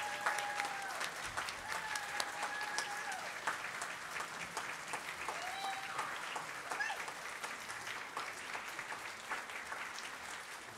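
Congregation applauding steadily, with a few voices calling out over the clapping; the applause eases off toward the end.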